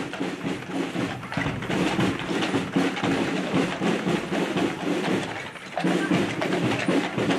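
Horse-drawn wagon rolling along a paved street: heavy wooden-spoked wheels rumbling and draught horses' hooves clopping, with a short lull a little past halfway.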